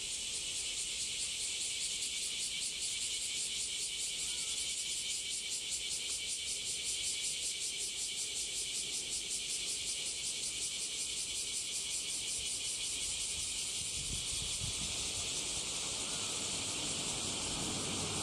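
A chorus of cicadas buzzing steadily with a fast pulsing beat. A low rumble rises near the end.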